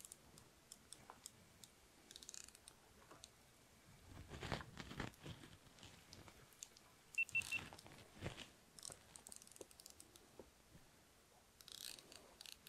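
Quiet, faint clicks and rustles from a spinning reel and rod being handled while a fish is played, with a slightly louder stretch about four seconds in and three short high beeps about seven seconds in.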